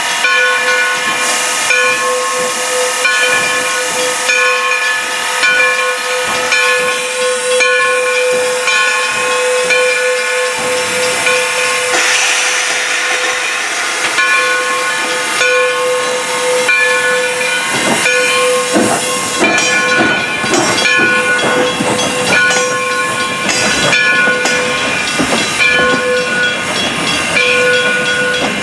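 Steam locomotive No. 60, a 2-8-0, standing with steam hissing and a steady high tone with overtones that breaks off and comes back every few seconds.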